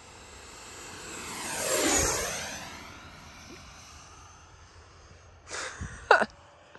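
Freewing 80mm electric ducted-fan L-39 model jet making a fast pass: its fan whine swells to a peak about two seconds in, sweeping in pitch as it goes by, then fades away. Two brief, loud noises come near the end.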